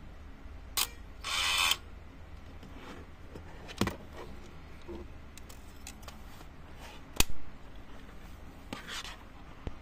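Plastic clicks and handling of a Wizen DX AFJ-70 35 mm point-and-shoot film camera as a film cartridge is loaded and the back cover is snapped shut. The sharpest, loudest click comes about seven seconds in, with short rustles and scrapes between.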